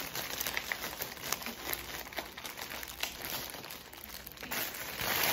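Packaging crinkling and rustling as it is handled and rummaged through, louder at the start and again near the end.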